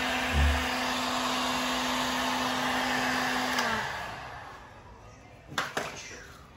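Hand-held heat gun blowing hot air to soften vinyl wrap film: a steady hiss with a low hum, switched off a little under four seconds in and fading away. Two short clicks follow near the end.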